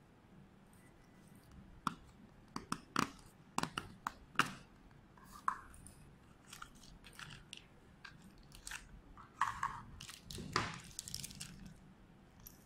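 Small clear plastic case handled and opened: a run of sharp clicks and taps from the lid and case, then scattered ones, and crinkling of a thin plastic parts bag a little before the end.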